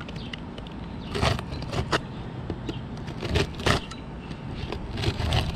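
Utility knife cutting through asphalt roof shingles, several short, uneven scraping strokes over a steady low hum.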